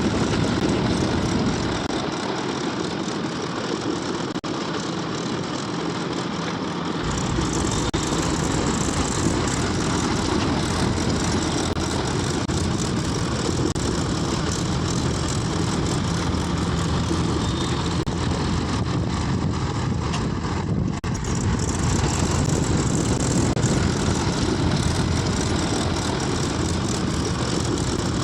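Heavy construction machine's diesel engine running steadily. The sound changes abruptly about two and seven seconds in and dips briefly about twenty-one seconds in.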